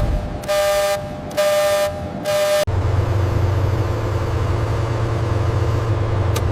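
Train horn sounding in several short blasts. After a sudden cut about two and a half seconds in, a steady low engine rumble follows.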